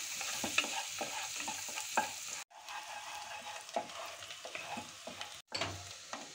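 Chopped garlic sizzling in melted butter, with a wooden spatula stirring and scraping against the pot in short clicks. The sound drops out abruptly twice, about two and a half and five and a half seconds in.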